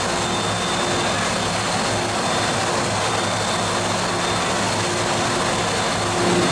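Steady drone and hum of an MTR M-Train standing at the platform before departure, with a thin high whine running over it.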